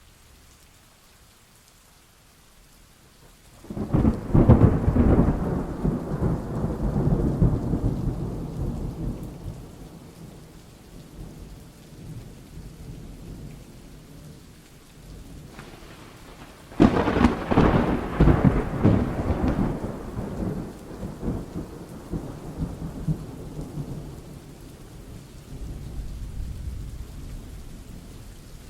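Thunderstorm with steady rain: two loud thunderclaps, one about four seconds in and one past the middle, each breaking with a sharp crackle and rumbling away over several seconds, with a fainter rumble near the end.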